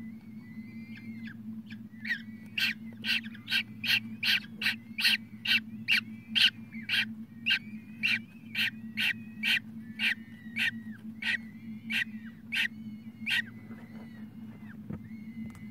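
Newly hatched peregrine falcon chick calling: a rapid series of harsh chirps, about two a second, starting about two seconds in and stopping near the end, with thin peeps throughout. A steady low hum runs underneath.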